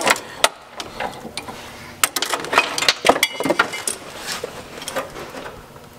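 Irregular metallic clicks, taps and clinks of tools and brake-line hardware being handled, bunched more closely in the middle, a few ringing briefly.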